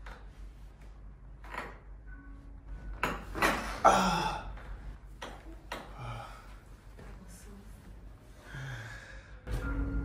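Chiropractic side-posture adjustment: a sudden thrust gives one sharp crack a little under four seconds in, followed by the patient's short gasp. Softer knocks and shuffles on the padded adjusting table come before and after.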